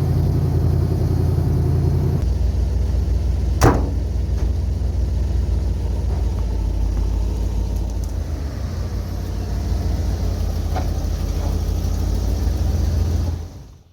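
Motor vehicle engine running steadily at low speed, then switched off near the end, the sound dying away within about half a second. A single sharp click about four seconds in.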